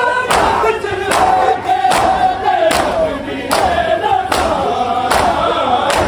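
A crowd of male mourners chanting together in a loud rhythmic matam chant. Sharp strokes of matam beat in time with it, a little more than one a second.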